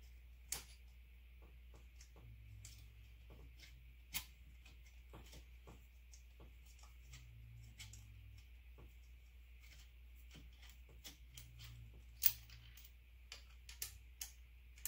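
Scattered light clicks and taps as injector harness connectors and the fuel rail are handled on the engine, the sharpest about twelve seconds in, over a steady low hum.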